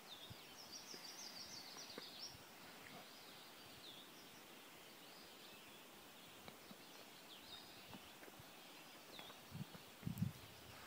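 Faint dawn birdsong in woodland: several birds calling, with a quick run of repeated high chirps in the first couple of seconds and short downslurred notes now and then, over a low steady hiss. A few soft low thumps near the end.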